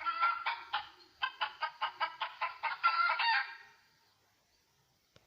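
Hen cackling: a burst of calls, then a quick run of short clucks, about six a second, ending in a longer drawn-out note that stops a little under four seconds in.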